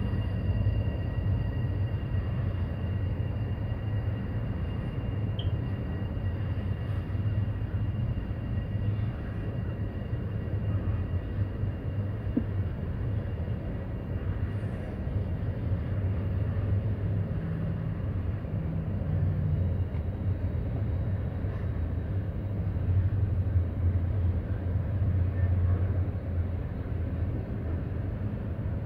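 Freight train rolling past: a steady low rumble of wheels on rail, with a faint thin high tone held above it.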